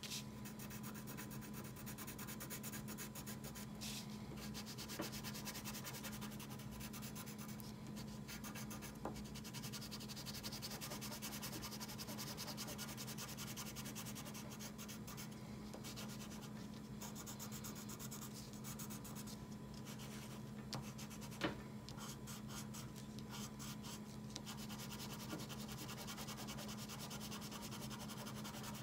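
Wax crayon rubbing on paper in rapid back-and-forth strokes, colouring in a section of a drawing, over a steady low hum.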